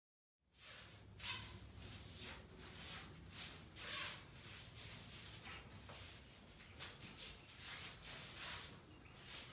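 Soft swishes and scuffs of two people's arms, sleeves and feet brushing and shuffling as they trade strikes and blocks, several short bursts over a low steady room hum.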